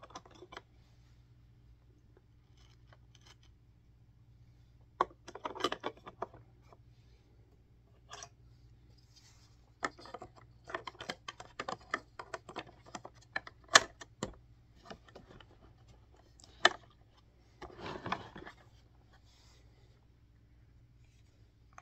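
Plastic vacuum cleaner parts being handled and fitted together: scattered clicks, taps and scraping in irregular clusters.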